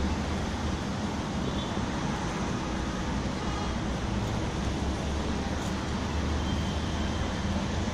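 Steady city street traffic noise: a continuous low rumble with a hiss over it, no single event standing out.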